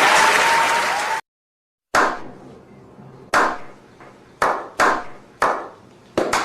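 Crowd applause cuts off about a second in. After a short gap, single hand claps follow, one roughly each second, quickening toward the end in a slow-clap build-up.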